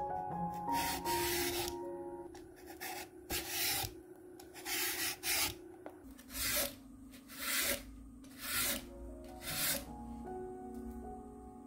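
Vegetable peeler scraping the skin off a whole lotus root in about nine separate strokes, roughly one a second, with soft piano music underneath.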